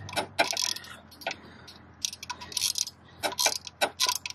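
Hand ratchet clicking in short runs as a guard's mounting bolt is tightened, over a low steady hum.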